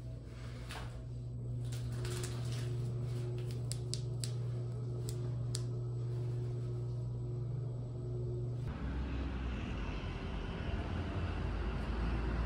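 Steady low hum inside a lift car, with a few sharp clicks scattered through it. About nine seconds in it cuts to outdoor street noise: a low, rumbling traffic hum.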